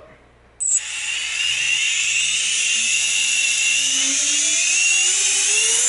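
Four Emax 2205 2600KV brushless quadcopter motors, props off, spinning up on the bench: a loud electric whine that starts about half a second in and climbs steadily in pitch as the throttle is raised. This is a props-off bench run after a loose motor connector was reconnected, to check for the yaw twitch.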